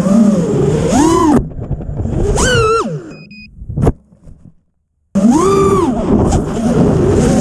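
Whine of a 5-inch FPV quadcopter's brushless motors and three-blade props, rising and falling in pitch with the throttle. About a second and a half in it drops away abruptly, followed by a brief rising burst, a sharp click near the four-second mark and a moment of dead silence. The whine then comes back suddenly.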